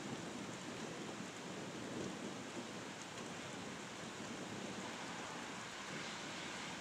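Steady rain falling at the tail end of a thunderstorm, an even hiss with no thunderclaps.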